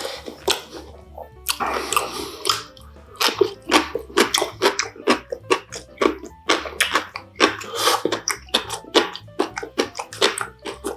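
Close-miked chewing of spicy dumplings: a quick run of wet mouth clicks and smacks, several a second, over quiet background music.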